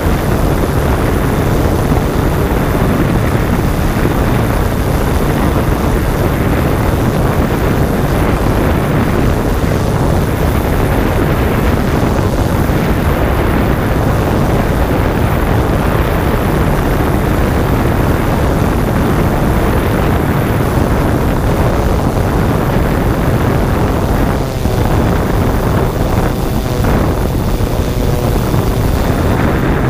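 Yuneec Typhoon G drone's rotors running in flight, heard through its own onboard camera as a loud, steady, low rushing mixed with wind on the microphone.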